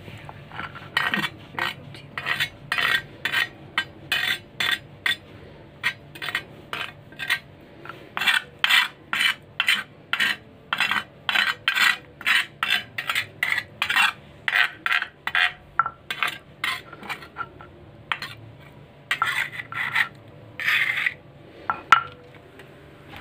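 Spatula scraping ground kencur and spice paste around a stone mortar (cobek), a long run of short rasping strokes at about two a second.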